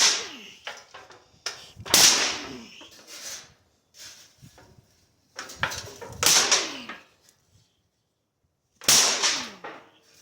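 Sheet steel being struck or banged: four loud, sharp metal hits a couple of seconds apart, each followed by a wobbling ring that falls in pitch, with lighter knocks in between.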